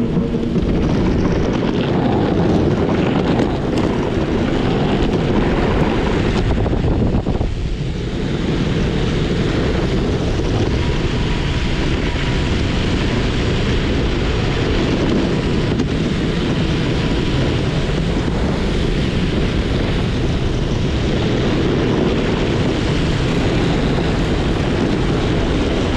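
Max 4 Pro hub-motor electric skateboard rolling at speed over asphalt: a steady rumble of the wheels on the road mixed with wind buffeting the microphone, dipping briefly about eight seconds in.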